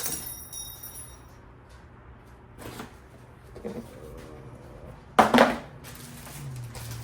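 Small hard parts clattering as they are handled, with one short, loud clatter about five seconds in. A faint steady hum runs underneath.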